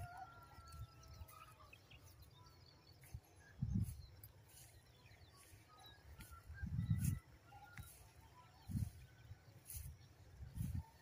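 Faint outdoor field ambience: a few short low rumbles, with a thin bird call near the start and a few faint bird chirps.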